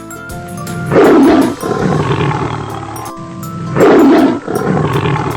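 A leopard's sound: two loud big-cat roars about three seconds apart, each trailing off into a lower rumble, over steady background music.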